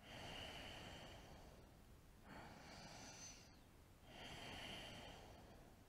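Ujjayi breathing: slow breaths drawn through a narrowed throat, giving a faint, soft hiss. There are about three breath strokes, each one to two seconds long, with short pauses between them.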